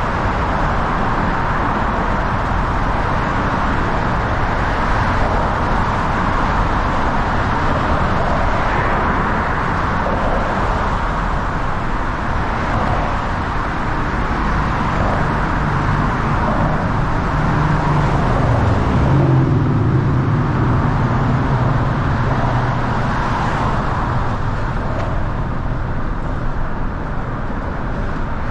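Steady road traffic noise from nearby cars. Past the middle, a passing vehicle adds a low engine hum that swells and then fades.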